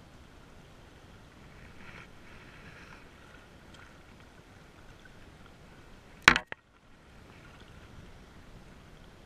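Steady wind and lapping water at the shoreline. A spinning reel being cranked whirs faintly in the first few seconds, and a single sharp knock comes about six seconds in.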